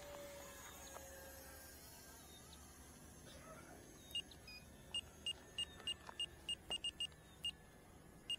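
Radio-control transmitter trim beeps: short high-pitched beeps, one for each press of a trim button. They start about four seconds in and come in a quick, unevenly spaced series while the jet is being trimmed in flight.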